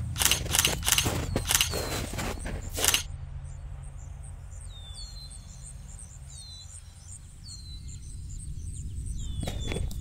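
Boots crunching through snow, a run of quick footsteps that stops about three seconds in and starts again near the end. In the pause, a few faint, high, falling chirps, over a steady low rumble.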